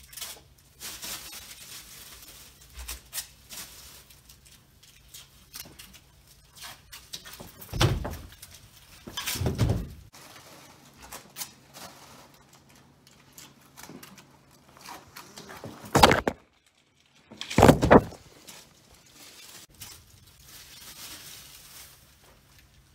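Taped-on pizza rolls being pulled and peeled off a wooden dorm-room door: scattered rustling, taps and small thuds, with four louder short noises, two around eight to ten seconds in and two around sixteen to eighteen seconds in. A faint low hum runs underneath.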